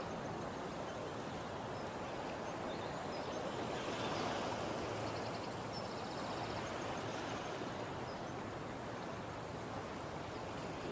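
Steady seaside ambience: small waves washing gently on a sandy shore, swelling slightly about four seconds in, with a few faint high chirps.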